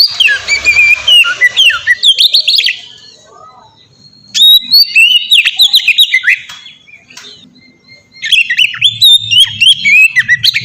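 Oriental magpie-robin (kacer) singing loudly: three bouts of rapid, sliding whistled notes, each two to three seconds long, with short pauses between them.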